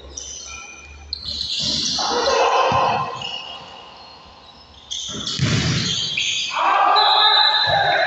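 Basketball game sounds echoing in a gym: a ball bouncing on the hardwood, sneakers squeaking on the court and indistinct players' voices. They come in two louder stretches, about a second in and again about five seconds in.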